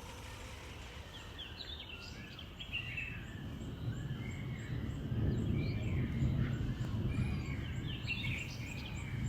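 Birds chirping in many short calls, over a low rumble that swells in the middle and then eases.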